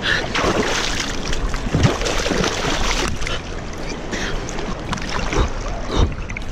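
Cold river water rushing and splashing right at the microphone as a person sits in the current and splashes water over his face, with uneven surges and splashes.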